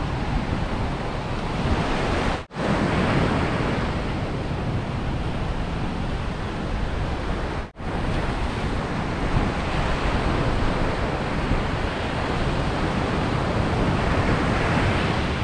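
Ocean surf breaking on a sandy beach, with wind buffeting the microphone. The sound cuts out for an instant twice.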